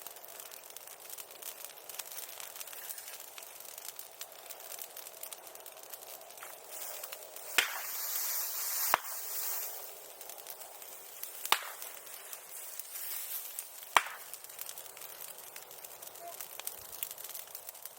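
Bonfire of green bamboo crackling steadily, with four sharp bangs as bamboo sections burst from the heat. A hissing rush rises around the first two bangs and again before the last.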